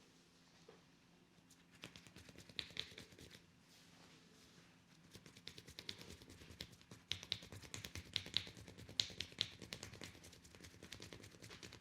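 Hands working on a head in a massage: a rapid run of crackling clicks and taps that starts about two seconds in and grows busier and louder from about halfway.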